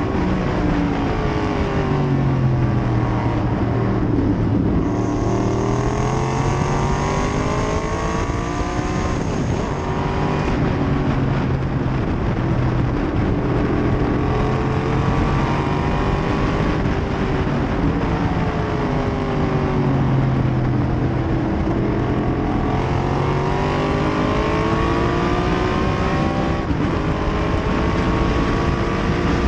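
A 1968 Corvette race car's V8 at full racing speed, heard from the open cockpit with heavy wind noise. The engine note climbs under acceleration, drops off, and climbs again several times.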